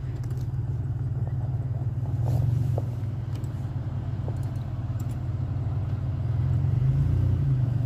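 Low, steady rumble of vehicle engines running, growing louder and shifting in pitch about seven seconds in.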